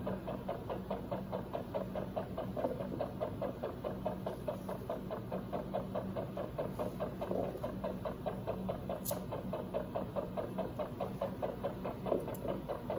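Rapid, even pulsing at about five or six beats a second over a steady low hum, typical of an anaesthesia heart monitor following a small rodent's fast heartbeat. One sharp click about nine seconds in.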